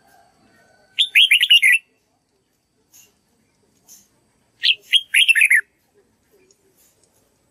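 Red-whiskered bulbul singing two short phrases about three and a half seconds apart, each a quick run of clear, falling whistled notes.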